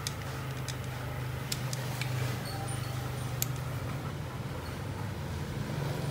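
A few light, sharp clicks of small tools and engine parts being handled, over a steady low hum.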